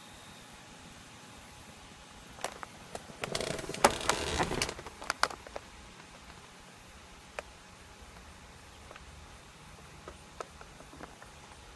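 Rustling and a flurry of sharp clicks a few seconds in, then a few faint single clicks over a quiet background, typical of a handheld camera being moved about inside a car.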